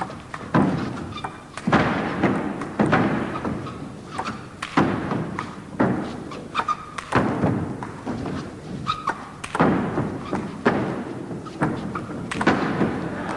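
Table tennis rally: the ball striking the bats and the table roughly once a second, each hit echoing around a large hall.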